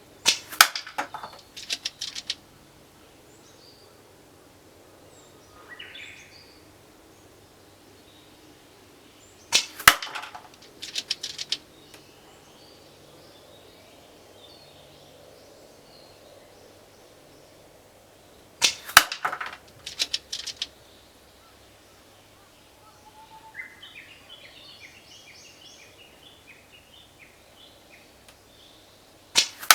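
Tokyo Marui L96 AWS spring airsoft sniper rifle firing single shots, a sharp crack about every nine seconds, four in all with the last at the very end. Each shot is followed within a second or two by a short run of smaller clicks. A bird chirps faintly near the end.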